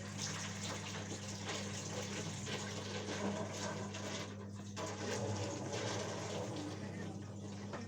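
Washing machine with water rushing and sloshing, over a steady low hum.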